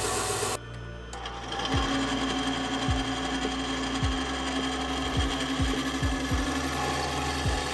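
Bandsaw cutting spalted beech: a steady hum from the running machine, with the note dipping briefly about eight times as the blade bites into the wood. In the first half-second, before a sudden drop, a belt sander is running.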